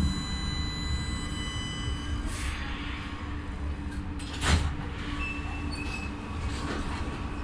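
KVB B80D light-rail car rumbling to a halt, its high multi-tone whine cutting off about two seconds in, followed by a short hiss. About four and a half seconds in a loud clunk sounds as the passenger doors release, then the doors swing open with a brief steady tone and a few lighter knocks.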